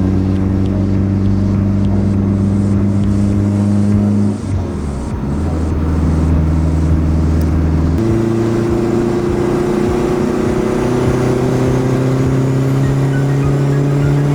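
Turbocharged Honda Accord wagon's engine running while driving, its pitch holding steady, jumping abruptly twice, then rising slowly as it picks up revs.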